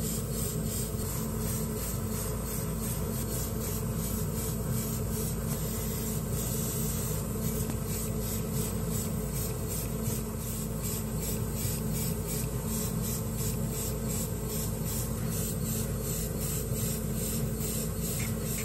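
Airbrush spraying lacquer paint in a steady hiss, with the low hum of its air compressor running underneath.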